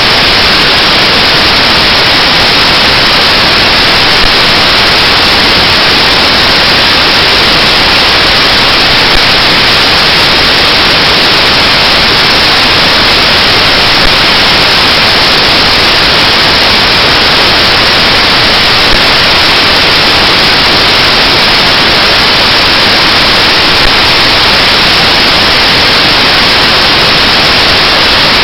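Loud, steady static hiss with nothing else audible, marked by faint ticks about every five seconds.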